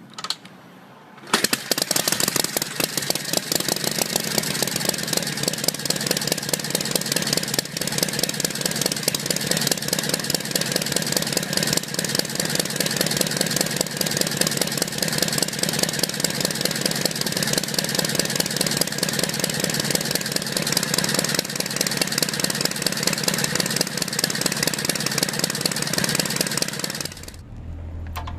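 Motorcycle engine starting about a second in, running at a steady idle, then shut off abruptly near the end.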